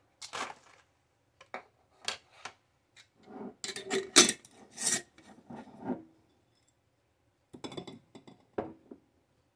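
Dehydrated broccoli florets rattling as they are tipped from a plastic measuring cup through a plastic funnel into a Mylar bag, followed by glass canning jars being handled, with clinks and scrapes. The sounds come as a run of short irregular clicks and rattles, with a pause before a last few near the end.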